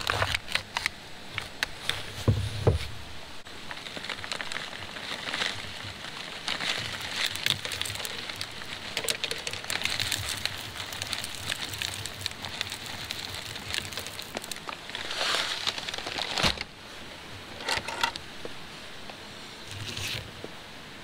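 Crinkling and tearing of a foil lid peeled off a yogurt cup, then dry granola poured from a bag, pattering and rustling into the cup, with a spoon clicking and scraping as it is stirred in near the end.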